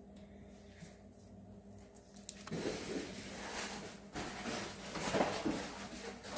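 Rustling and rubbing from a deep fryer's power cord and its twist-tie wrap being handled close to the microphone. It starts about two and a half seconds in, after a quiet stretch of low room hum.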